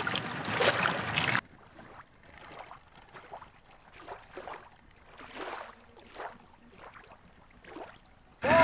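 Water splashing and sloshing around a river raft for about a second and a half, cut off suddenly; then only faint, irregular soft water sounds, with music starting at the very end.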